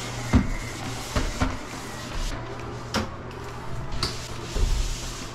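Spray mop worked over a tile floor: the pad swishes across the tiles and the mop head knocks against the floor and baseboard several times. A steady low hum runs underneath.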